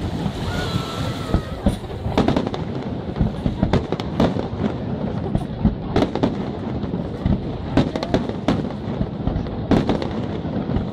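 Professional aerial firework shells bursting in an irregular string of sharp bangs, roughly two a second, over a continuous low rumble.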